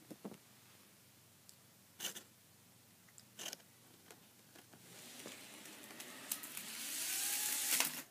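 Model Amtrak Acela train's small electric motor whirring with a rising whine, getting louder over about three seconds as the power pack's speed dial is turned up, then cutting off suddenly as the train derails. Before it, a few short knocks and clicks of handling.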